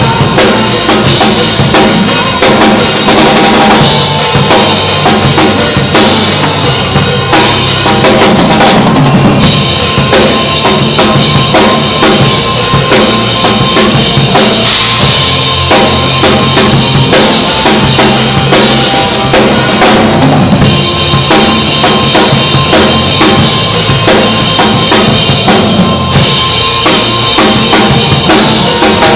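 Acoustic drum kit played live, with bass drum, snare and cymbal hits in a steady groove, over a recorded pop song backing track.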